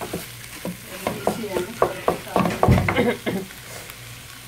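A wooden spatula stirring chicken-and-potato samosa filling in a frying pan: a quick run of scrapes and knocks against the pan over a low sizzle, the loudest a heavier knock about two-thirds in, then easing off to the sizzle alone near the end.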